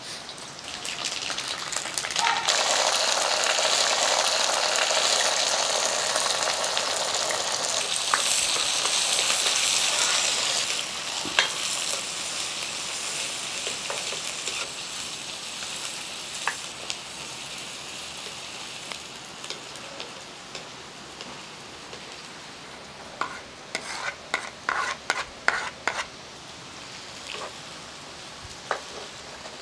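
Hot oil in a wok sizzling loudly for several seconds as mustard seeds splutter, then settling to a steadier, quieter frying of sliced shallots. A ladle scrapes and knocks in the pan in a quick run of sharp strokes near the end.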